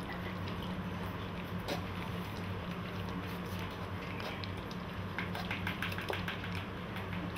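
Two golden retriever puppies eating from one plastic bowl: wet chewing and lapping with scattered sharp clicks, and a quick run of clicks about five seconds in. A steady low hum underneath.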